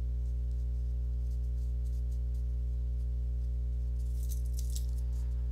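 Steady low electrical hum with a ladder of overtones, constant throughout. About four seconds in, faint scratchy strokes of a pencil on sketchbook paper sound over it.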